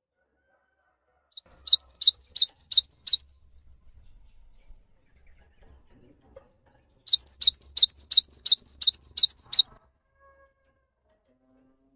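Cinereous tit (gelatik batu) singing: rapid runs of repeated high, downward-sweeping whistled notes, about three to four a second. A burst of about six notes comes a second and a half in, and a longer burst of about ten notes about seven seconds in.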